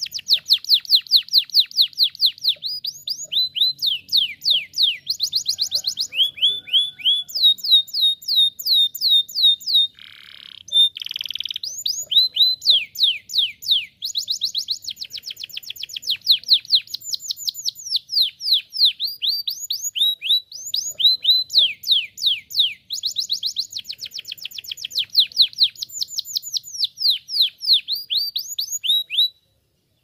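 Domestic canary singing a long, unbroken song of rapid trills: fast runs of downward-sweeping notes, changing in speed and pitch from one roll to the next. A short, rougher noisy note comes about ten seconds in, and the song stops just before the end.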